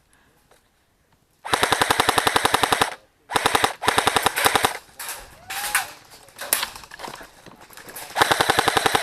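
Airsoft rifle firing full-auto, rapid evenly spaced shots. The first burst starts about one and a half seconds in and lasts about a second and a half, and a second follows just after it. Scattered single shots come in the middle, and a third burst comes near the end.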